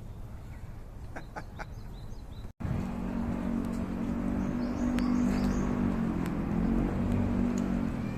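Small birds chirping a few short calls over a low wind rumble. After a brief cut, a louder, steady low engine hum sets in, with a few more bird chirps above it.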